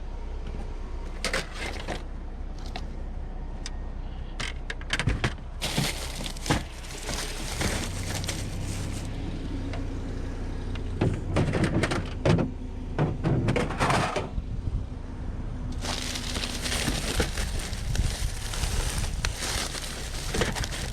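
A vehicle engine idling steadily, with scattered knocks, clatter and rustling noise that come in bursts.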